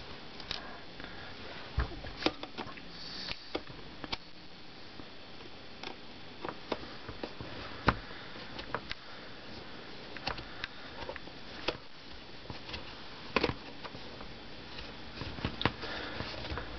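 A small screwdriver turning screws out of the plastic back casing of a battery-operated nightlight, with fingers handling the plastic: irregular small clicks and ticks, a few sharper than the rest.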